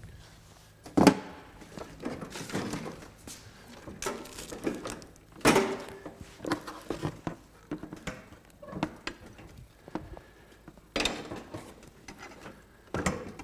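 Handling noise from a snowblower's handlebar and plastic-wrapped control console being swung up into place: irregular knocks and clunks of metal and plastic parts, with rustling between them. The loudest knock comes about a second in.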